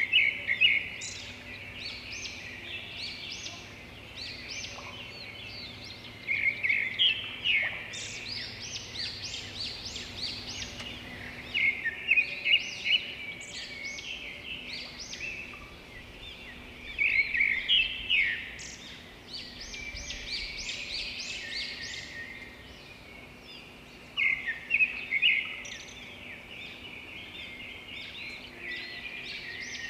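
Small birds chirping and twittering, in bunches of quick, high calls every five or six seconds with softer twittering in between.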